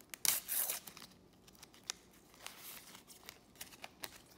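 Sticker pack wrapper torn open by hand: a loud rip lasting about half a second near the start, then softer crinkling of the wrapper and a few light clicks as the stickers are handled.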